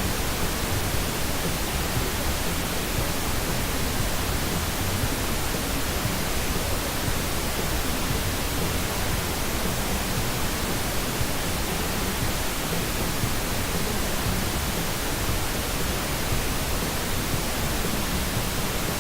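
Steady test noise: a hiss spread evenly from low to high pitches at an unchanging level, with no speech or other sound in it.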